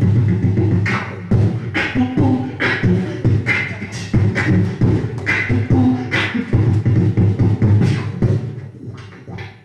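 Human beatboxing into a handheld microphone: a steady beat of deep bass kicks with sharp snare and hi-hat sounds cracking in a regular rhythm a little under a second apart, tailing off near the end.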